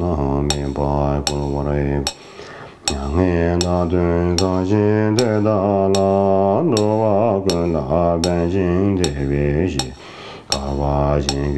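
A deep male voice chanting a Tibetan Buddhist prayer in a slow, melodic recitation, pausing twice briefly. A sharp click keeps time at about two strikes a second throughout.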